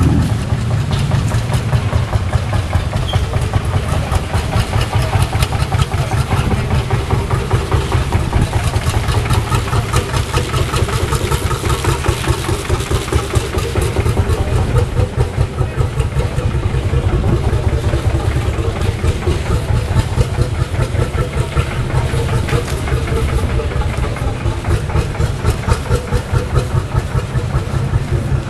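Single-cylinder Lanz Bulldog-type hot-bulb tractor engine idling, a steady, regular, low thumping of about two to three beats a second.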